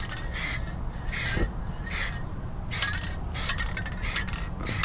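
Aerosol spray-paint can hissing in short bursts, roughly one every second or less, as flat black paint is sprayed on in passes, over a steady low rumble.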